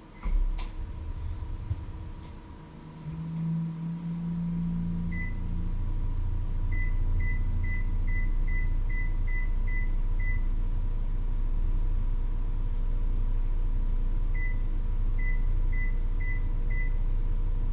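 Countertop microwave oven running with a steady low hum, its keypad giving short high beeps: a run of about eight at roughly two a second, then five more near the end. A few sharp clicks sound at the very start.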